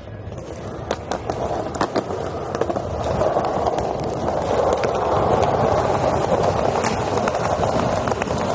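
Skateboard wheels rolling over stone plaza paving: a steady rolling rumble that grows louder about three seconds in, with scattered sharp clicks.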